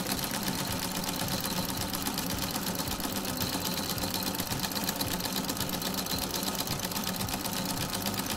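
Industrial straight-stitch sewing machine running steadily at speed with a buttonhole attachment fitted, stitching a buttonhole in rapid, even needle strokes as the attachment shifts the fabric. It stops at the very end, when the buttonhole is finished.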